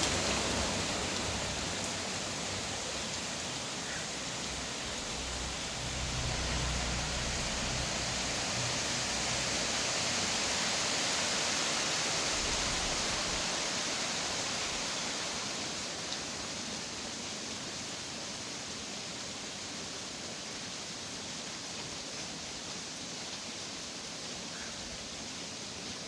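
Steady rainfall, a dense, even hiss that swells a little in the middle and eases toward the end. A low rumble runs underneath for several seconds about a quarter of the way in.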